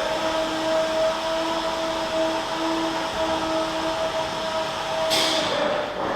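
Milking parlor machinery humming steadily with a few fixed tones. About five seconds in there is a short hiss of air lasting nearly a second, and then the hum's pitch drops slightly.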